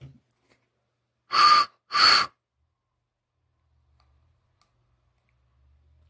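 Two short, loud puffs of blown air about half a second apart, airy with a hollow edge.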